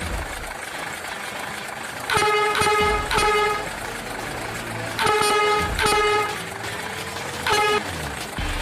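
Dump truck horn honking in short toots, three in quick succession, then two, then one, over a steady engine rumble.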